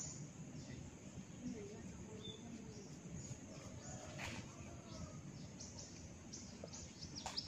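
Small birds chirping in quick, repeated short downward notes, with faint distant voices beneath. A sharp crack comes about four seconds in and another near the end.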